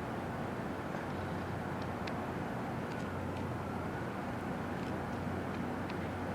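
Steady low hum under a constant wash of outdoor background noise, with a few faint scattered ticks.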